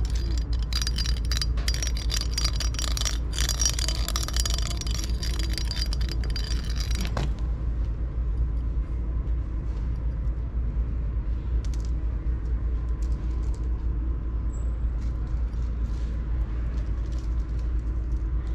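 Metallic jingling and scraping of a cat toy's wire tip on concrete as kittens bat at it, for several seconds before stopping abruptly; after that only faint light clicks over a steady low rumble.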